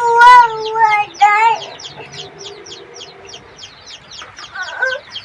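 Domestic chicks peeping continuously, short falling cheeps several a second, with a louder wavering call in the first second and a half.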